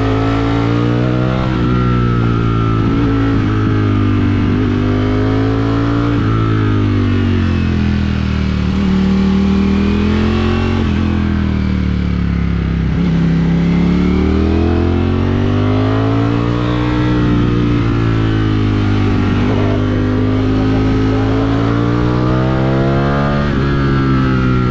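Ducati Streetfighter V4's 1103 cc V4 engine heard onboard while riding. Its pitch climbs and falls repeatedly as the throttle is opened and closed, with wind and road noise underneath.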